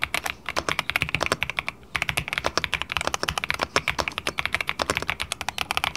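Fast typing on an Ajazz AK650 gasket-mounted, plastic-bodied mechanical keyboard with five-layer acoustic damping: a rapid, even run of key clacks with a brief pause about two seconds in.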